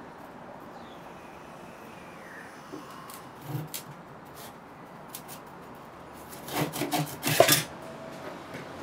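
Handsaw cutting through a softwood board: a couple of light strokes, then a quick run of louder rasping strokes about two-thirds of the way in as the saw finishes the cut.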